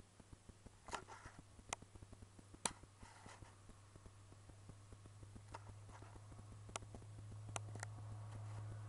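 Faint low engine hum that grows steadily louder through the second half, with a few scattered sharp clicks.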